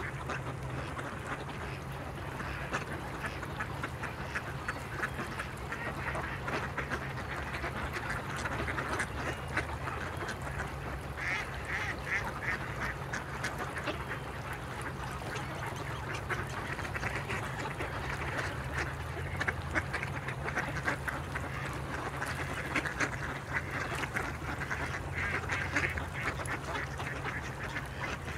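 A flock of mallards quacking constantly, many calls overlapping, over a steady low hum.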